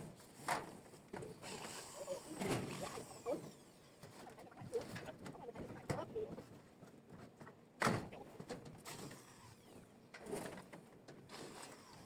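Scattered knocks and scraping from hand work, the sharpest knock near the end, with a dove cooing now and then in the background.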